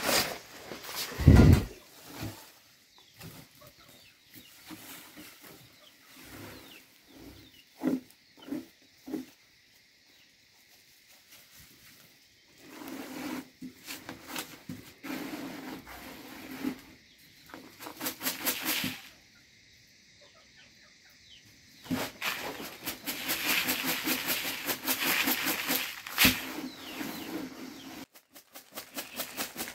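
Ground corn grits rustling and pattering as they are shaken and tossed on a round bamboo winnowing tray, in long spells of rapid, rhythmic shaking. A heavy thump comes about a second and a half in. Chickens cluck now and then.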